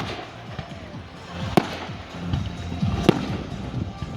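Fireworks bursting: two sharp bangs about a second and a half apart, with music playing underneath.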